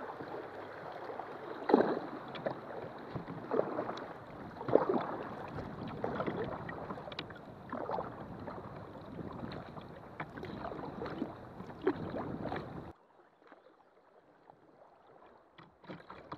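Kayak moving through shallow creek riffles: running water splashing around the hull, with sharp paddle splashes every second or two. About two-thirds of the way in the sound cuts off abruptly to near quiet, and faint water sounds return near the end.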